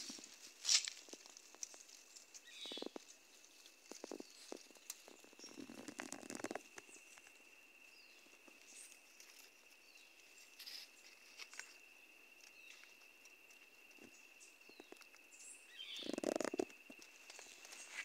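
Faint rustling and crackling of ferns and grass, with scattered small clicks and two louder bursts, about six seconds in and near the end, over a thin steady high tone.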